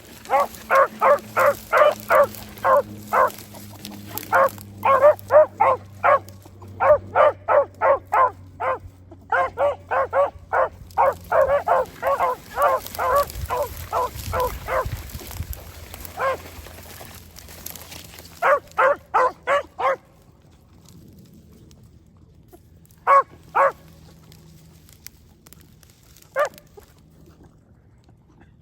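Beagle hounds giving tongue while running a scent line: quick, repeated baying barks, about three to four a second, in runs with brief breaks. After about twenty seconds the barking thins to a few single barks.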